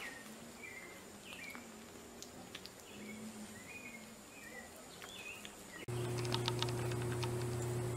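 Short, soft chirping calls repeating every half-second or so. About six seconds in they give way to a louder steady low hum with a few clicks.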